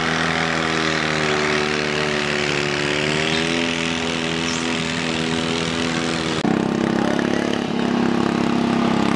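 Tractor engine running steadily, its pitch wavering slightly. About six seconds in the sound changes abruptly to another engine running a little louder.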